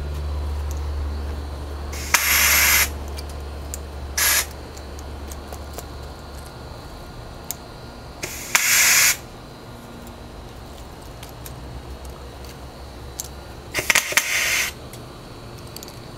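Homemade valveless BB gun firing compressed air in four sharp hissing blasts, three lasting under a second and one very short, spread a few seconds apart. The gun is jamming because too many BBs were loaded.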